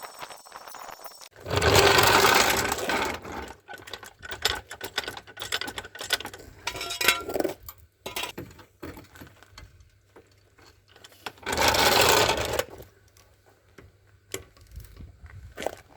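A small power tool running in two short bursts of about a second and a half each, with scattered clicks and knocks of tools between them.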